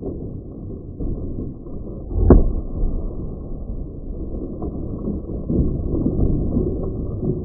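A single heavy rifle shot from the Big Horn Armory AR500 in .500 Auto Max about two seconds in, sounding dull and muffled, as the bullet smashes a rock apart. A low rumbling noise runs underneath and swells a few times later on.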